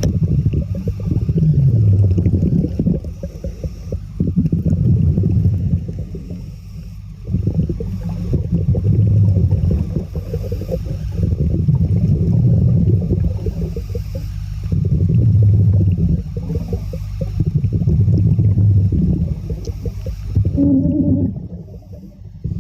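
Underwater rumble and bubbling around a diver, low and heavy, swelling and fading in waves every two or three seconds.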